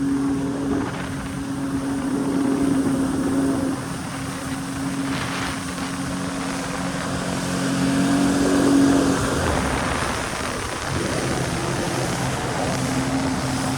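Jet ski engine running steadily under way, a constant drone with the rush of water spray and wind over it; it swells louder a couple of times.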